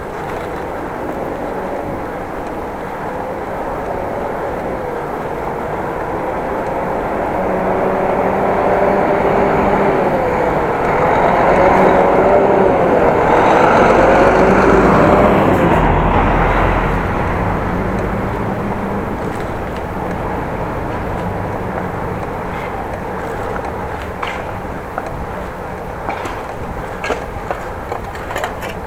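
Traffic and riding noise from a bicycle on a city street, with a motor vehicle's engine growing louder to a peak about halfway through and then fading as it passes.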